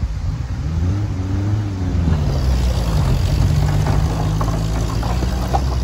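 Vehicle engine running as it drives over a rocky dry riverbed. Its pitch rises briefly, drops about two seconds in, then holds steady, with light knocks and rattles in the second half.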